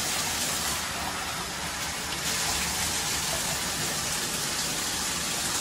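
Water running steadily into a bathtub and splashing as a wet puppy is rinsed of shampoo.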